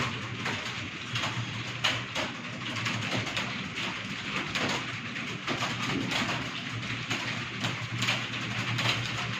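Many computer keyboards being typed on at once, a dense, continuous clatter of keystrokes during a timed typing test, over a steady low hum.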